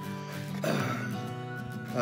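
Background instrumental music: a held chord that swells about two thirds of a second in and sustains.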